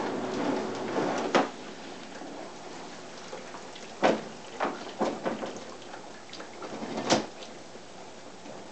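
Hotpoint dishwasher door unlatched with a sharp click about a second and a half in, cutting off a steady rain-like wash noise; then the wire dish racks are pulled out, knocking and rattling three or four times.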